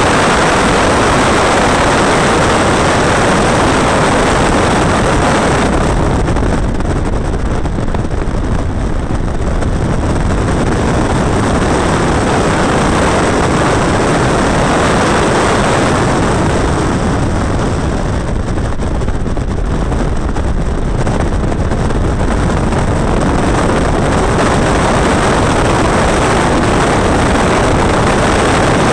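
138 bhp Caterham Roadsport's engine running hard on a timed sprint run, heard from the open cockpit mixed with wind rush. The sound dulls twice for a few seconds each, about six and seventeen seconds in, then builds again.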